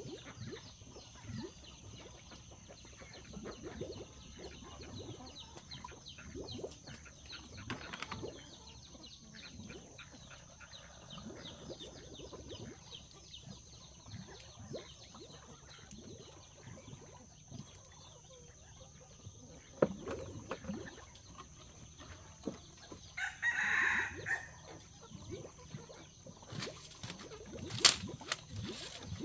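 A rooster crows once, about three-quarters of the way through, over scattered knocks and rustling and a faint steady high tone. A sharp loud click comes near the end.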